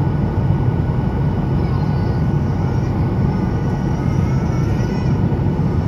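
Jet airliner cabin noise in flight: a steady, even low rumble and rush of the jet engines and airflow, heard inside the cabin.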